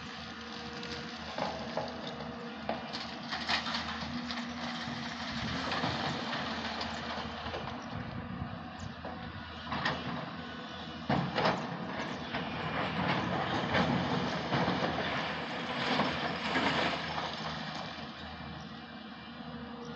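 Heavy diesel machinery at a stone quarry running steadily, with irregular clanks and rattles of metal and rock, loudest a little past halfway.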